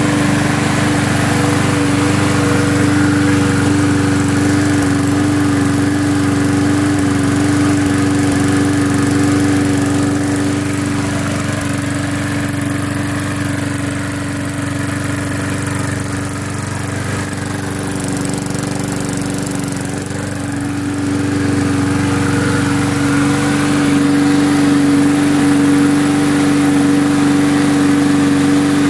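Briggs & Stratton single-cylinder four-stroke lawn mower engine running at a steady speed, burning off the Seafoam cleaner that it was soaked with.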